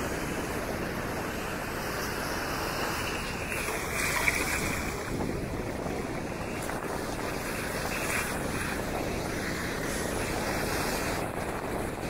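Ocean surf breaking and washing up a sandy beach: a steady rush of waves, with some wind on the microphone.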